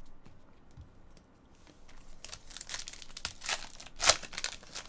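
Foil wrapper of a baseball-card pack crinkling and tearing as it is ripped open by hand: a run of crackly rustles that starts about two seconds in and is loudest about four seconds in.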